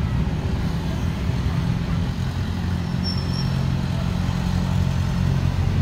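Steady low hum of a motor vehicle engine running, with street traffic around it. A short high squeak sounds about three seconds in.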